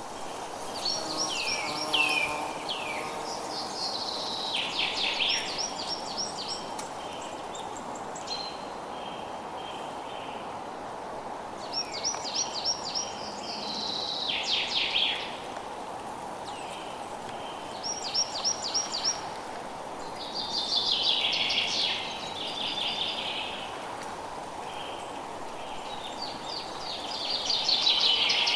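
Forest ambience: a songbird sings short phrases of rapid falling notes, about six of them a few seconds apart, over a steady background hiss.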